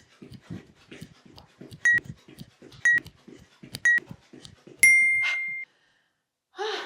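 Workout interval timer counting down the end of a 30-second exercise: three short beeps a second apart, then one longer beep. Under the beeps, rhythmic footfalls and panting from butt kicks stop with the long beep, and a breath follows near the end.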